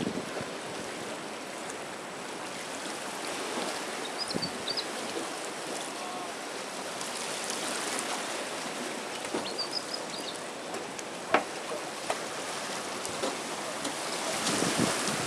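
Steady wash of small waves lapping in the shallows, with wind on the microphone. Short high bird chirps come twice, and there is a single sharp click about eleven seconds in.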